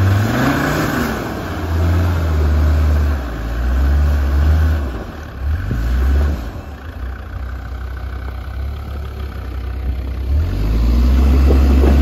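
Land Rover Discovery's engine revved hard in repeated bursts, rising sharply at the start, as the 4x4 tries to drive up a deep snow track. The wheels spin and dig into the snow without the vehicle moving.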